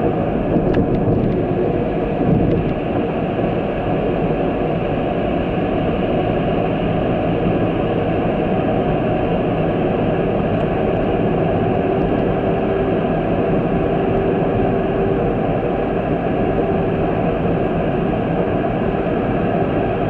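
Steady engine and road noise of a vehicle driving along a road, with a faint steady hum running through it.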